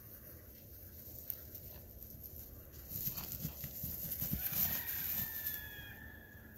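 A Highland calf galloping through long grass: soft hoof thuds and rustling grass that build up about halfway through and fade near the end.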